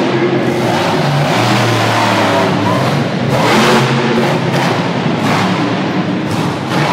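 Monster truck engine revving hard as the truck charges across the dirt and launches off a jump, mixed with loud music over the arena PA.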